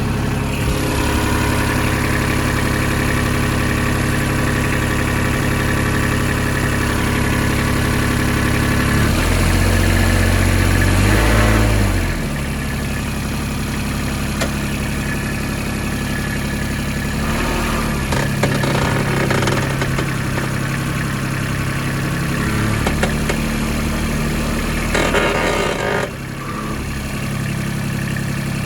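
2006 Kubota RTV900 utility vehicle on the move, its three-cylinder diesel running steadily and rising in pitch for a few seconds about nine seconds in, with a driveline noise that the owner suspects is a blown axle bearing.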